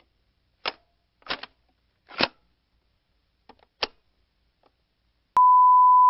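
A few scattered short clicks and crackles over silence, then, near the end, a loud steady single-pitch beep: the standard test tone that goes with television colour bars.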